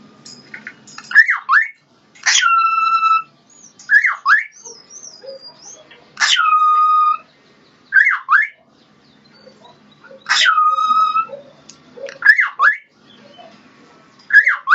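Male cockatiel whistling its courtship song: a short rising-and-falling chirp followed by a long held whistle note, repeated about every four seconds, three full times.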